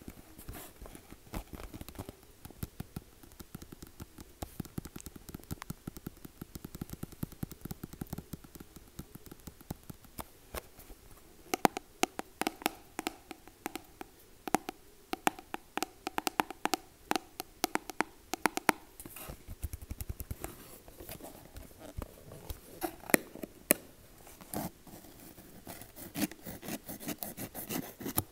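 Close, rapid tapping: many quick light taps in dense runs, getting louder and more resonant from about eleven seconds in.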